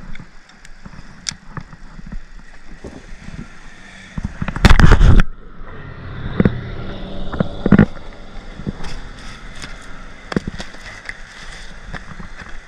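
Handling noise in a plastic kayak as a small pickerel is landed in a mesh net: scattered knocks, clicks and rattles against the hull. There is one loud rush of noise about four and a half seconds in, lasting under a second, followed by two sharper knocks.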